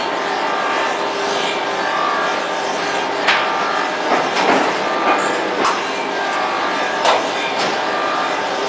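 ST-SKJ560 hardcover book casing-in machine running with a steady mechanical din and a faint hum. A few sharp clacks sound irregularly through it as the mechanism cycles.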